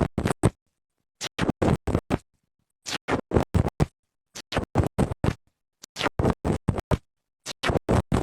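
Slime being squeezed and poked, making quick runs of sharp pops and crackles, about six to eight a second. The runs last about a second each, with short silent pauses between them.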